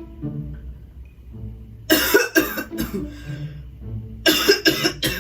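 A person coughing hard in two fits, three coughs about two seconds in and four more near the end: staged coughing, part of a prank faking a coughing fit. Background music with low bowed strings plays underneath.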